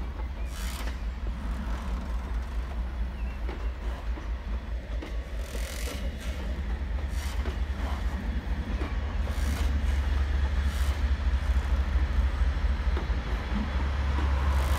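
Class 56 diesel locomotive's engine drones low and grows louder as it approaches, hauling loaded stone wagons whose wheels clatter and creak over the rails, with occasional clanks.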